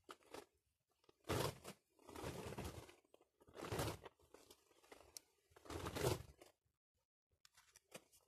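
Several short bursts of rustling, crinkling noise from handling close to the microphone, as a hand moves a sprouted avocado pit and brushes the leaves of an avocado seedling.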